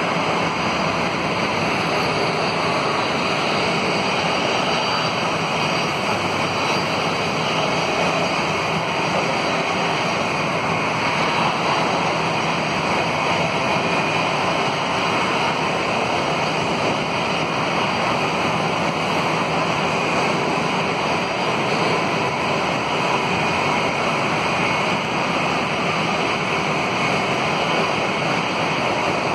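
Steady roar of airliner jet engines running on the airport, an even rushing noise with no change for the whole stretch.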